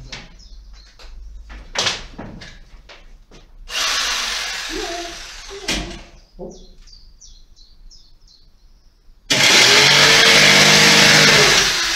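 Handheld electric saw cutting a wooden floor board: a short loud run about four seconds in, then a longer, louder steady run from about nine seconds that winds down near the end. Handling knocks and clicks come before the first run.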